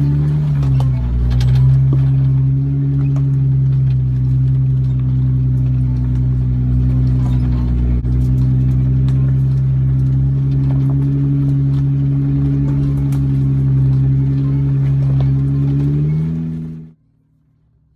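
A Jeep's engine running at low, steady revs as it crawls over a rocky trail, the pitch dipping slightly about a second in and rising a little near the end, with scattered faint clicks. The sound cuts off suddenly shortly before the end.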